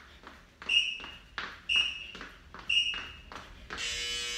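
Workout interval timer counting down with three short high beeps a second apart, then a long buzzer tone starting near the end that marks the end of the work interval. Soft thuds of feet landing from jumps in place sit underneath the beeps.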